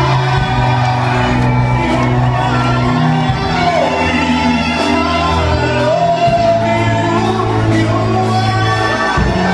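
A man singing a love song into a microphone over amplified backing music with a steady bass line and regular percussion, while a crowd of guests shouts and whoops.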